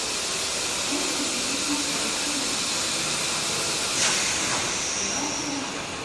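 A steady, loud hiss, with a sharper burst of hiss carrying a high tone starting about four seconds in and fading away; faint voices underneath.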